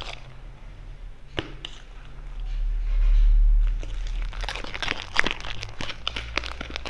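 Clear homemade slime squished and stretched by hand, giving quick sticky clicks and crackling pops that come thickest in the second half. The slime is still sticky and not yet pulling free. A low rumble swells about three seconds in.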